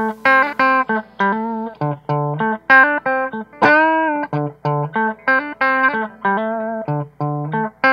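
Les Paul-style electric guitar with humbucker pickups, played on the clean channel of an Audio Baron TG-30 30-watt guitar amplifier. Quick picked single-note lines, with one held note about three and a half seconds in that wavers with vibrato.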